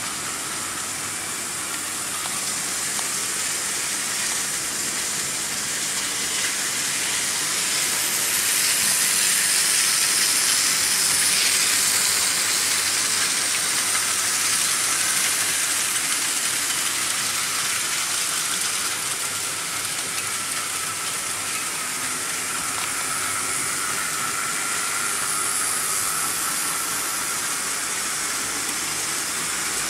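Several Märklin H0 model trains running on stamped-steel M-track: a steady metallic rolling hiss of wheels on the metal rails, with a faint steady motor whine underneath. It swells as a train runs close by, loudest about ten seconds in.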